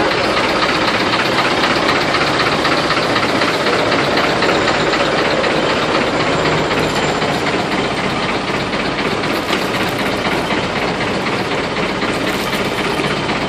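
A boat's engine running steadily at idle, a loud continuous mechanical drone.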